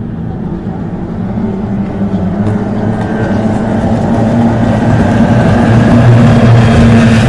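Racing powerboat engines running with a steady drone, growing louder throughout.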